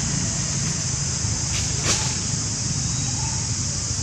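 Steady outdoor ambience: a continuous high-pitched hiss over a low steady hum. One sharp click comes about two seconds in, and a few faint short calls are heard.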